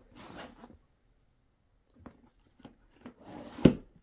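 Plastic disc golf discs handled in a bag: brief rubbing and rustling, a pause, then light clicks and scuffs building to one sharp knock near the end.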